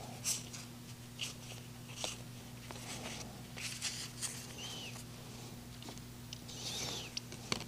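Quiet room tone with a steady low electrical hum, and faint scattered ticks and rustles now and then.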